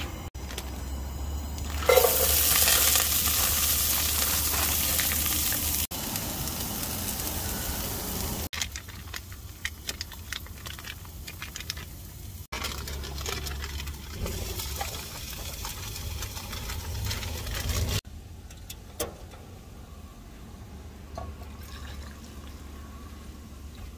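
Camp-stove cooking sounds in short edited clips: a loud steady hiss about two seconds in that lasts about four seconds, then quieter handling noises, and near the end hot water being poured from a pot into two metal tumblers.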